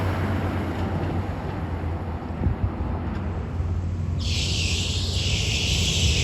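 A motor vehicle engine running steadily with a low hum, amid outdoor noise. About four seconds in, a steady high hiss starts suddenly and carries on.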